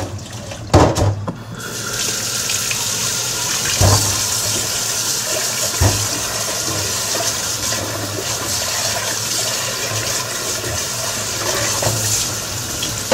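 Kitchen tap running steadily into a sink, turned on nearly two seconds in, with a few sharp knocks of things handled at the sink.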